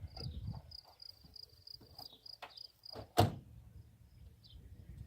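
Rapid, even high-pitched chirping of an insect, repeating several times a second, over light rustling; about three seconds in a single sharp thump, a car door shutting.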